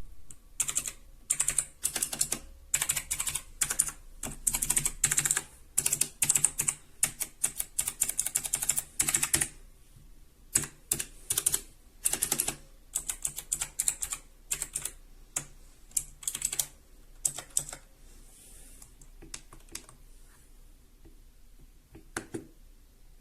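Typing on a Philips SPK8614 mechanical keyboard: fast runs of key clicks that thin out past the halfway point and trail off to a few last keystrokes near the end.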